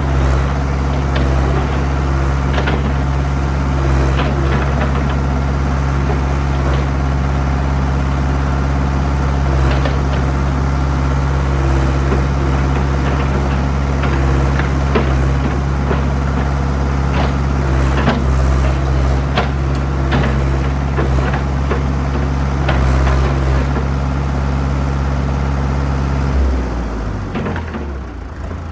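Old backhoe engine running steadily under throttle, with scattered clanks and knocks from the digging. Near the end the engine drops in pitch as it is throttled back toward idle.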